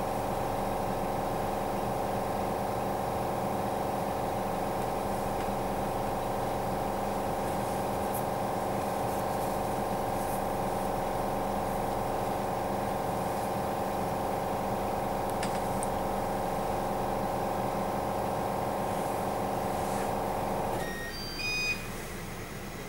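A steady machine hum that cuts off abruptly about 21 seconds in, followed by a quick run of short electronic beeps.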